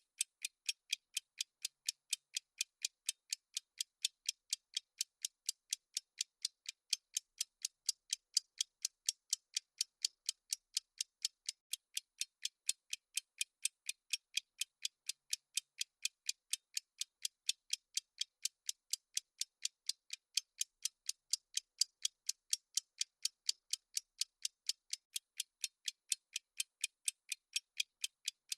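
Clock-ticking sound effect of a countdown timer: sharp, even, high-pitched ticks, about three a second, going on without a break.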